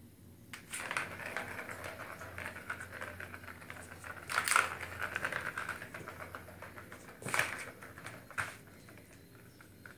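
A small plastic ball rattling as it rolls around a plastic ball-track cat toy, batted along by a cat's paw. Sharper knocks of paw or ball against the track stand out, the loudest about four and a half seconds in and another about seven seconds in.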